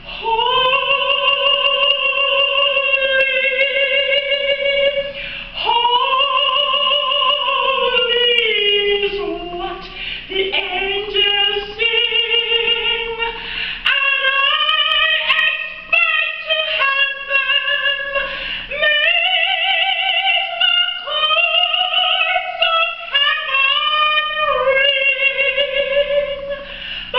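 A woman's soprano voice singing high, long held notes with a wide vibrato, sliding in pitch between phrases.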